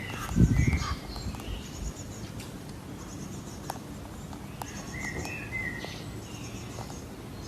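Short bird-like chirps and scattered clicks over steady outdoor background noise, with a low thump about half a second in.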